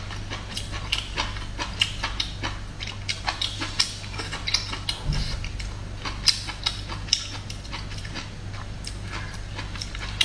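Close-miked chewing of stir-fried bamboo shoot slices: many short, irregular crunches and wet mouth clicks. A low, steady hum runs underneath.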